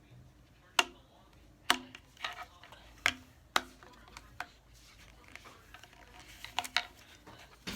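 A unicorn simple dimple fidget toy's silicone bubbles being pushed through one at a time. Each push gives a sharp pop, about seven of them at irregular intervals.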